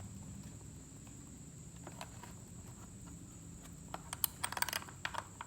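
Light clicks and taps of small parts being handled: a couple of faint ones early, then a quick run of sharp clicks about four seconds in.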